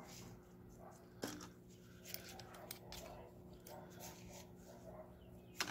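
Light clicks and rustling of small airbrush parts being handled, with two sharper clicks, about a second in and near the end, over a steady low hum.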